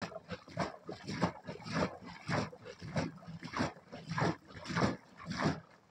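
Liquid sloshing and gurgling inside a goatskin churn as it is rocked and pressed by hand, about one slosh every 0.6 seconds: the churning of lassi.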